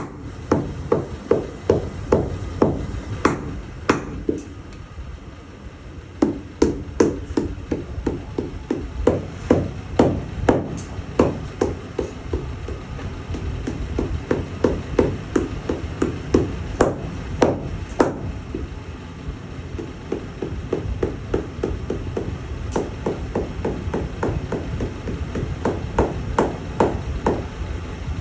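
Shoemaker's hammer tapping on a freshly glued leather sole of a shoe held in the lap to press it down, in runs of quick blows about two to three a second with short pauses, over a low steady background rumble.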